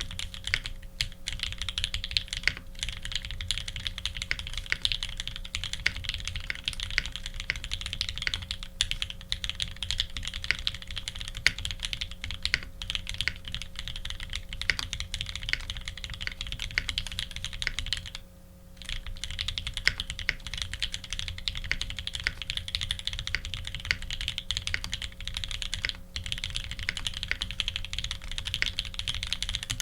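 Continuous fast typing on an F1-8X custom mechanical keyboard with lubed H1 switches, an aluminium plate and GMK keycaps, with one brief pause a little past the middle. A faint steady hum sits underneath.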